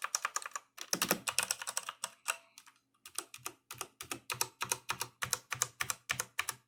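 Typing on a Redragon Dark Avenger mechanical keyboard with Outemu Brown tactile switches: a fast flurry of keystrokes, a brief pause, then steady, evenly paced key presses, about three to four a second, that stop near the end.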